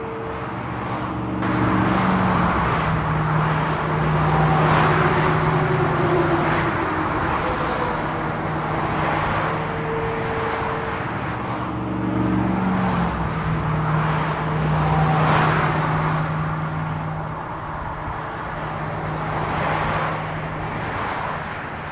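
Highway traffic: a continuous rush of tyre and engine noise, swelling as vehicles pass one after another. Under it runs a low engine drone that drops in pitch twice.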